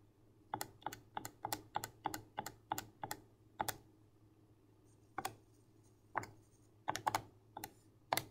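Keys of a TI-84 Plus Silver Edition graphing calculator being pressed: a quick run of about a dozen key clicks in the first four seconds, then slower, scattered single presses.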